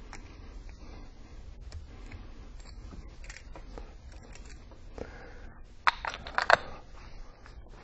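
Small clicks and taps of a lamp and light-fixture parts being handled, with a few sharper clicks about two thirds of the way through.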